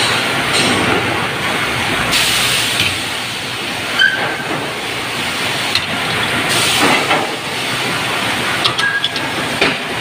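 Sawmill log carriage running on its rails, feeding a large Merbau log into a band-saw headrig to be split. A steady loud mechanical noise with surges of high hiss, and a brief high squeal about 4 s in and again near the end.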